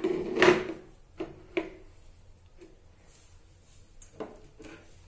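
Mirrored glass tray with metal feet set down on a wooden shelf and shifted into place: a loud knock about half a second in, then a few lighter knocks and clinks.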